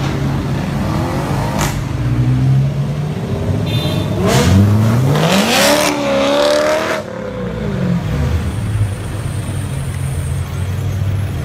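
Sports car engines revving and accelerating away. The loudest is a hard acceleration about four seconds in, its pitch rising steeply for about two seconds before falling away.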